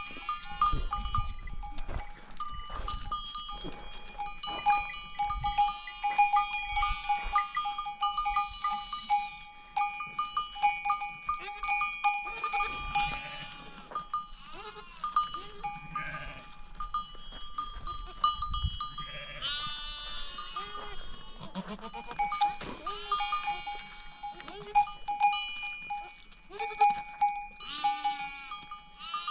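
A flock of sheep and goats bleating, many overlapping calls, over the steady ringing of their neck bells.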